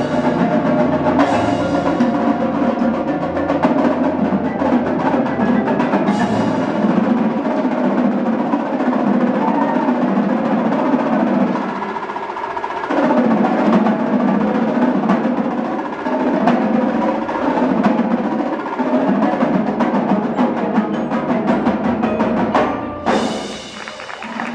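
Percussion ensemble performing: drums, snare included, with other percussion playing continuously, easing briefly about halfway through and dipping near the end.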